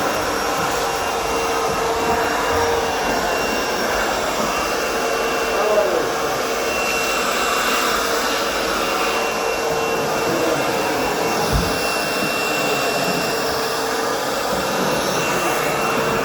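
Vacuum cleaner running steadily as it is worked over carpeted stairs, with a steady whine and slight shifts in pitch as the nozzle moves. There are two brief knocks, about six and eleven seconds in.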